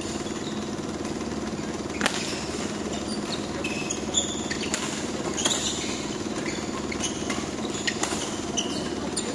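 Badminton rally: sharp racket strikes on the shuttlecock about four times, with short high shoe squeaks on the court floor between them. A steady mechanical hum runs underneath.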